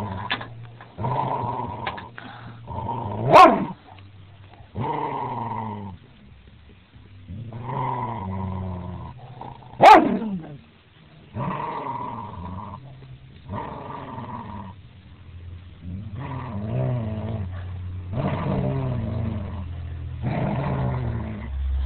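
A dog growling over a large bone in repeated low bursts about a second long, one with each breath, as a hand touches her. Two short, sharp, higher cries break in, one about three seconds in and one about ten seconds in, the second falling quickly in pitch.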